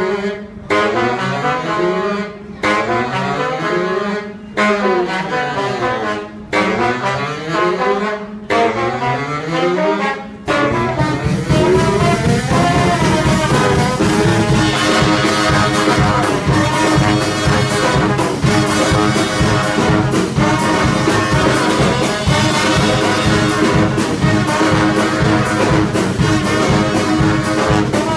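Street brass band of trombone, saxophones, sousaphone and trumpet. For about ten seconds the horns play sliding phrases that rise and fall, broken by short pauses. Then the full band comes in with the drum kit at a steady beat.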